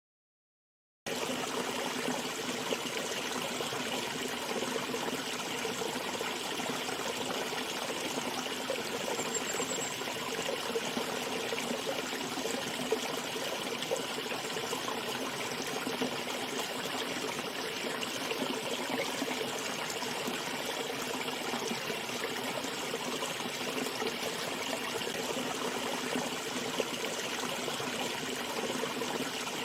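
Running water flowing steadily, as in a stream, starting abruptly about a second in.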